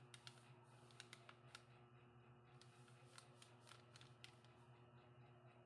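Near silence: a low steady hum with faint, irregular light clicks and ticks.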